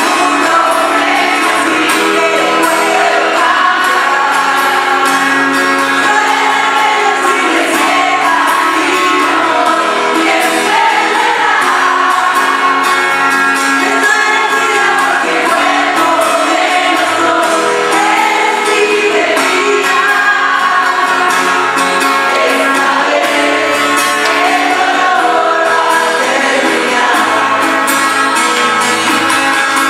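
Live acoustic performance: a woman singing lead over two strummed acoustic guitars.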